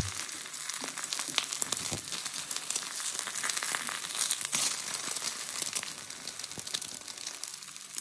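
Egg frying in hot oil in a hand-hammered iron wok: a steady crackling sizzle full of tiny pops. A wooden spatula knocks once against the wok right at the start.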